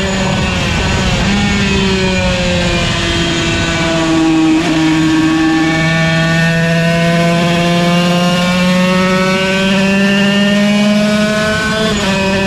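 Yamaha TZ125 single-cylinder two-stroke racing engine at full song: the revs fall over the first couple of seconds, stay low around four to five seconds in, then climb steadily under acceleration until a sudden drop near the end as it shifts up a gear.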